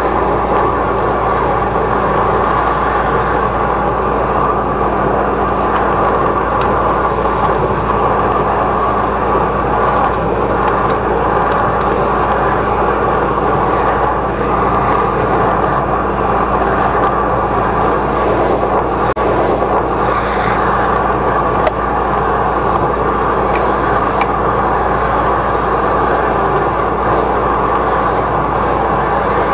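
13-horsepower engine-driven high-pressure drain jetter running steadily under load while its jetting hose works through a drain pipe.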